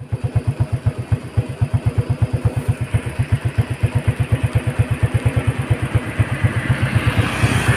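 Old Yamaha Vega motorcycle's single-cylinder four-stroke engine idling in neutral, with an even pulsing beat of about nine pulses a second.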